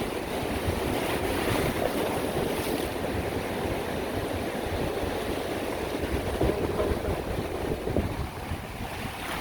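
Sea waves breaking and washing in a steady surging rush, with wind buffeting the microphone.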